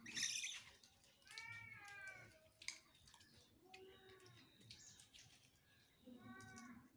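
Puppies whining in several high, arching cries, about a second in, again near the middle and once more near the end. A brief loud hiss of noise comes right at the start.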